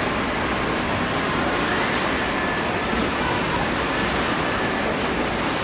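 Wave pool's artificial waves breaking and churning, a steady rush of water.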